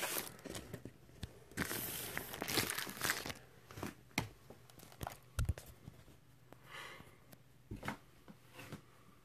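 Paper and plastic record sleeves rustling and crinkling as a vinyl LP is slid out of its inner sleeve and handled, densest in the first three seconds, then lighter rustles and clicks with a couple of soft thumps.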